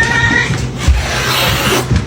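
A cat's meow ending about half a second in, over background music.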